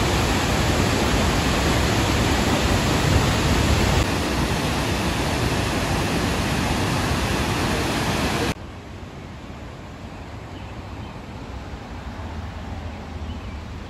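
Roar of Ithaca Falls, a large tiered waterfall, as a loud steady rush of water. After about eight seconds it cuts off abruptly to a much quieter steady outdoor hiss.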